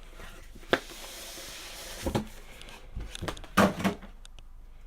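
A cardboard graphics-card box being handled and opened: a sharp tap about a second in, a couple of knocks, then the loudest cluster of knocks and scraping near the end.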